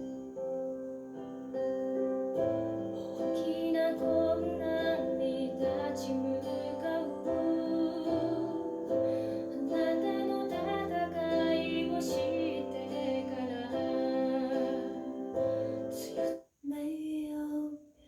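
Music played back through Revel Ultima2 Gem2 three-way bookshelf speakers: sustained keyboard chords over a bass line. About sixteen and a half seconds in it cuts out briefly, and a different passage starts.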